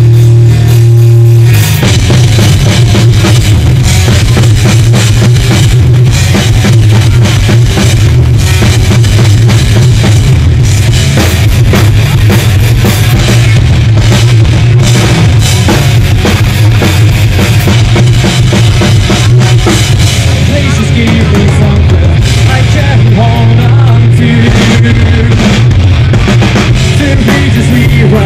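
Live rock band playing very loud: drum kit, electric guitar and bass. A held low chord rings for the first second or two before the full band comes in with heavy drumming.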